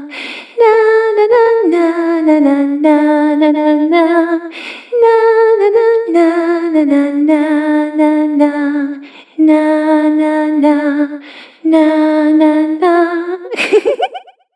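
A girl's voice humming a slow, wavering tune in short phrases with brief pauses between them. Near the end a short harsh burst, then the sound cuts off.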